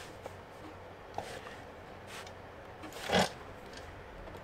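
Soft handling sounds as a metal drawer pull is set against a taped plywood drawer face and marked around with a marker. There is a small click about a second in and a short scratchy rasp about three seconds in.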